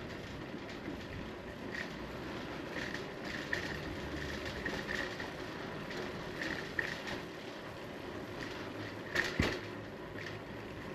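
A bicycle ridden over asphalt: steady tyre and road rumble with many small ticks and rattles, and two sharp knocks about nine seconds in.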